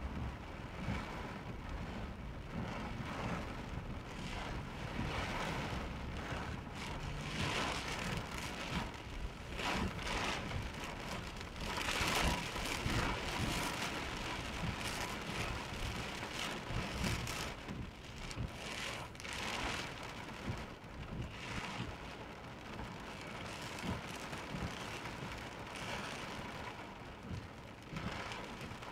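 Heavy rain falling on the car in a flash-flood downpour, heard from inside the car as a steady rushing patter that swells in irregular surges, strongest about twelve seconds in.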